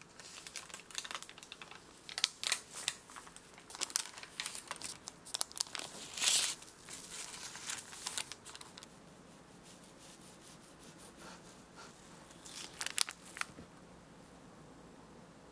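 Parchment baking paper crinkling and tearing as it is peeled away from the sides of a baked sponge cake: a run of short rustles over the first nine seconds or so, loudest about six seconds in, then two or three more crackles near the end.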